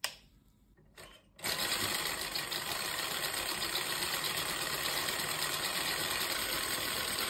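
Four-cylinder V model Stirling engine running at speed, a steady, fast mechanical whirr that starts about a second and a half in, after a near-silent moment.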